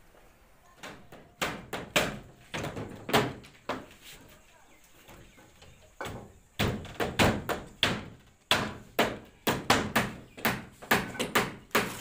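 Hammer blows on wooden slab shuttering: sharp knocks at about three a second, stopping for about two seconds midway, then starting again.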